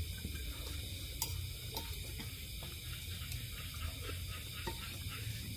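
Quiet eating sounds: spoons and forks making a few light clicks and scrapes against ceramic bowls, over a steady low background hum.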